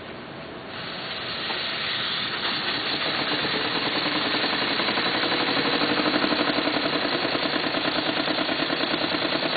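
PM Research Model 3 model steam engine starting on live steam: a hiss builds over the first couple of seconds, then the engine settles into a rapid, even chuffing beat under steady hissing. The hiss is steam escaping from many leaks in the engine, chiefly at the main valve.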